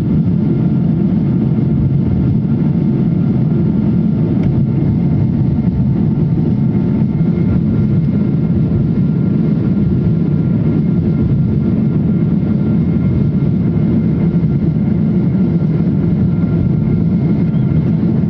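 Steady airliner cabin noise on approach: a deep rumble of engines and rushing air heard from a window seat over the wing, with a faint steady whine on top.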